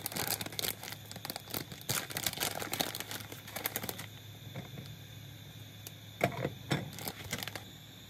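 Irregular crackling and popping from food cooking in a covered pot on a lit gas burner, dense for about four seconds, then only a few scattered pops, over a steady low hum.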